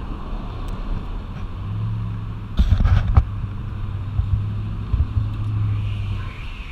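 Small camera drone flying, its motors giving a steady low hum, with a few sharp knocks about three seconds in.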